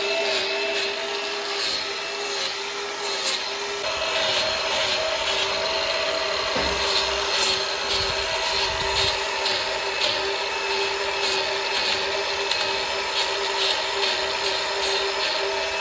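A motor running steadily, a constant hiss with a steady whine in it, and a little low rumble that comes and goes a few seconds in.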